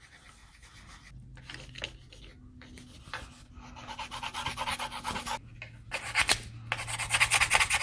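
Coloring strokes scribbling quickly back and forth on paper as lily pads are filled in, in two long runs with a short pause between them, over a faint steady hum.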